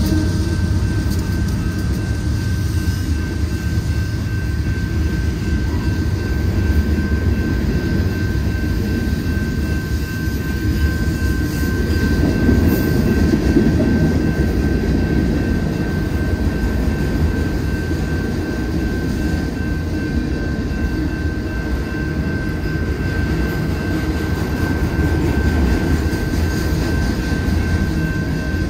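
Union Pacific freight train passing at speed over a grade crossing: a loud, steady rumble of wheels on the rails as the cars roll by, with a thin steady high tone over it.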